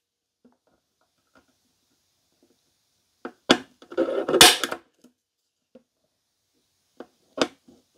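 Spring-loaded center punch snapping as it marks the drill-hole centres on the metal front panel through a glued-on paper template. There are three sharp snaps about halfway through and near the end, with softer clicks and a brief rustle of the tool being handled.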